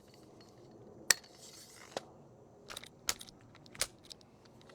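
A handful of sharp clicks and taps from a battery-powered mini chainsaw as it is handled and its spring-loaded part is worked; the saw's motor is not running. The loudest click comes a little over a second in.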